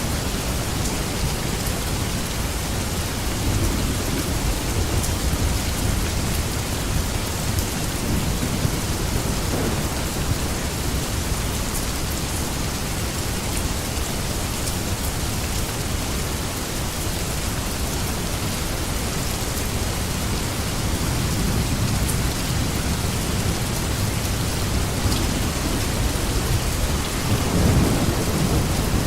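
Steady heavy rain, an even hiss of falling water over a low rumble that swells briefly near the end.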